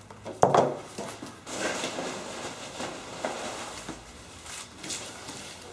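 Paint cans and packing peanuts being handled in a cardboard shipping box: a sharp knock about half a second in, then rustling and a few light clinks.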